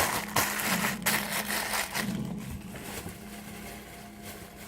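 Rustling and crinkling of handled plastic packaging, busy for the first two seconds and then quieter.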